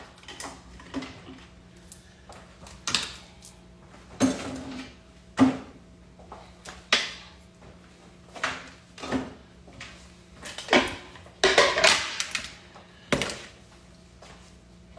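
Kitchen clatter: dishes and utensils handled and set down, about a dozen irregular knocks and clinks with a busier run about three-quarters of the way through, over a faint steady hum.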